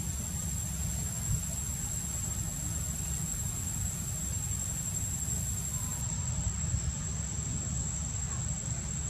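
Insects buzzing steadily at one high pitch, over a constant low rumble.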